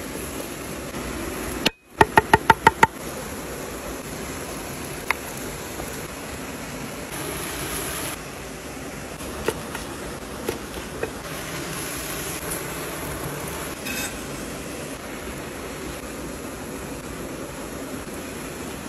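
A steel cleaver chops fast on a wooden board, about seven quick ringing strokes around two seconds in. After that there is a steady hiss with a few light taps and clicks as the food is handled.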